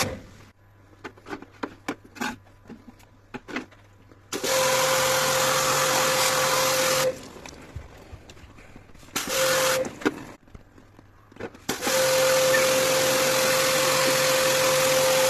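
A handheld electric motor tool switched on and off in three bursts, each a steady whine over a loud hiss that cuts in and out sharply; scattered clicks and knocks fill the gaps between bursts.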